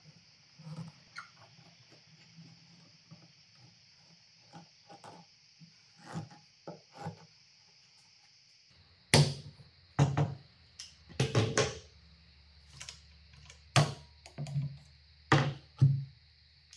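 Wooden workpieces and hand tools being handled on a workbench: light clicks and taps, then a run of sharp wooden knocks in the second half.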